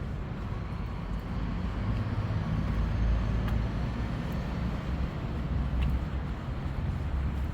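City street traffic: a steady low rumble of passing vehicles that swells for a few seconds in the middle.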